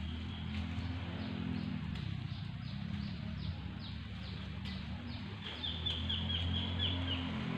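A bird calling a series of short, falling notes about twice a second, switching to a quicker run of lower notes about three-quarters of the way through, over a steady low hum.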